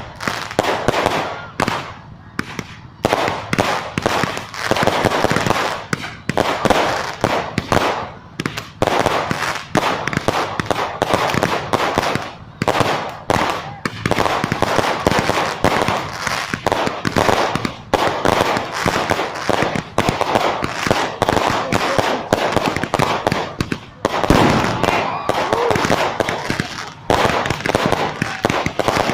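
Fireworks and firecrackers going off in dense, rapid volleys of sharp bangs and crackles, several every second, without a break.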